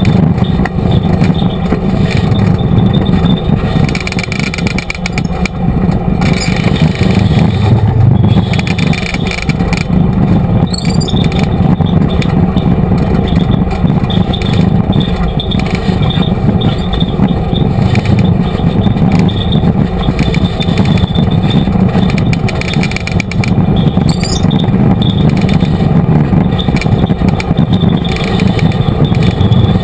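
Off-road vehicle's engine running steadily while driving along a rough dirt trail, loud and close.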